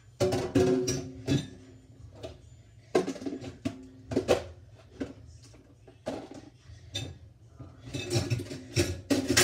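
Plastic mixing bowls knocking and clattering against each other and against a stainless steel sink as they are washed and stacked: a string of irregular knocks, some ringing briefly, with a busy cluster about a second before the end.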